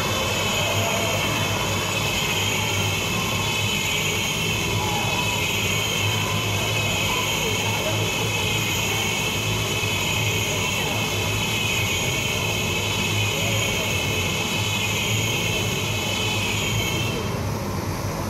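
Motorcycles circling inside a steel-mesh globe of death, their engines running hard in a continuous drone. The higher whine drops away about a second before the end.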